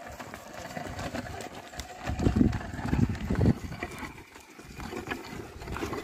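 A yoked pair of oxen ploughing dry hillside soil: hooves tread and a wooden plough scrapes and rustles through the earth, with a cluster of heavy low thuds between about two and three and a half seconds in.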